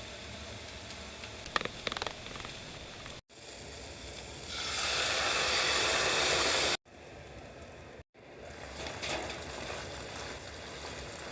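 Frying pan sizzling as chicken gizzards and lotus root cook in a miso sauce, with a few clinks of a utensil a couple of seconds in. The sizzle swells loud for a couple of seconds midway, and the sound breaks off abruptly a few times.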